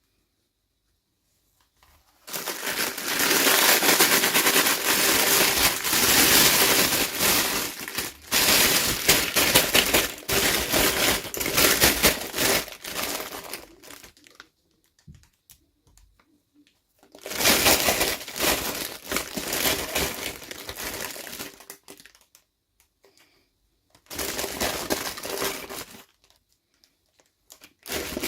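Packaging crinkling and tearing as it is unwrapped by hand, in three long spells with short pauses between.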